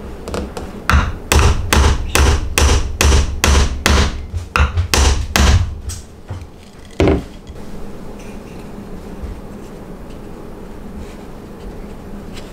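Small hammer tapping a metal pin into a hole in a wooden board: a quick run of sharp blows, about three a second, for some five seconds, then a single further blow about seven seconds in.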